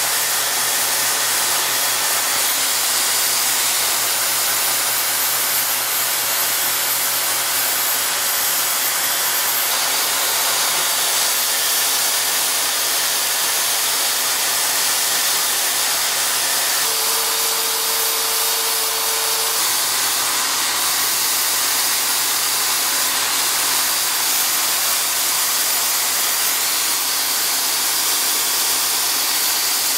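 Corded power drill running steadily at speed as the drive of a homemade mini lathe, with sandpaper rubbing against the spinning wooden tool handle. A steady hum-like tone stands out from the whirr for a couple of seconds past the middle.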